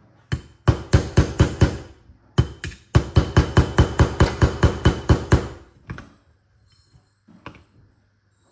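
Small hammer tapping a steel punch against a shotgun action part: quick metallic taps, about four or five a second, in runs with short pauses. The tapping stops about six seconds in, and only a few faint clicks follow.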